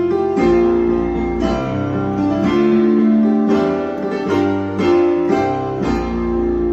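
Keyboard played with both hands: sustained chords over a low bass note in the left hand, a new chord struck about every half second to second. Major chords are voiced over a minor melody, giving an uplifting feel.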